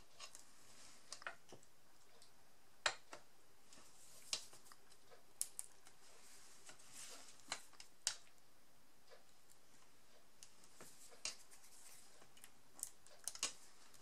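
Scattered light clicks and taps of a fine pointed tool and a paper card being handled on a cutting mat, about a dozen at irregular intervals, with faint paper rustling.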